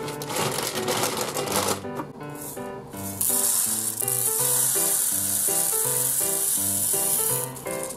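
Uncooked rice grains pouring from a plastic measuring cup through a plastic funnel into a plastic bottle: a steady, loud, hissing rattle from about three seconds in, stopping about half a second before the end. Background music plays throughout.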